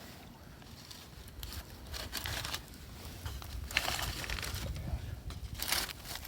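Irregular bursts of crinkling and rustling, loudest about two seconds in, again around four seconds, and near the end.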